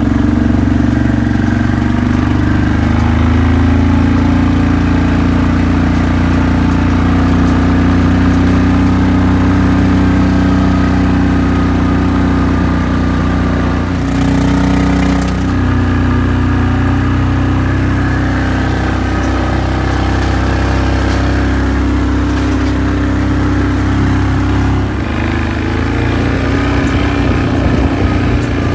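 Quad bike engine running steadily while it is ridden along a farm track. The engine note shifts briefly about halfway through and changes again near the end.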